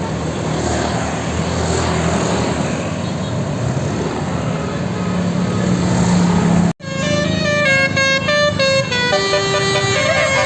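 Bus engine running amid road noise, then after a sudden break about seven seconds in, a multi-tone 'telolet basuri' bus horn plays a stepping melody of several notes at once.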